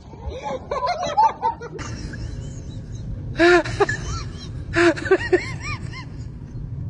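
A person laughing in short bursts of rapid rising-and-falling notes, with quieter sound beneath.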